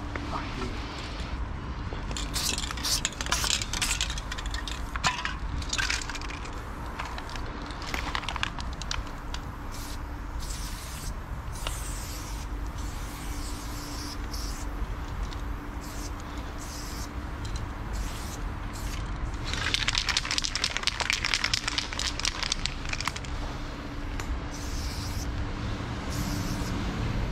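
Loop Colors aerosol spray paint can hissing in many short bursts as lines are sprayed, with one longer spray of about three seconds past the middle.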